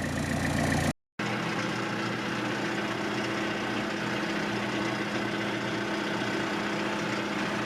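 Vehicle engine running steadily. It breaks off about a second in and resumes as an even, unchanging hum.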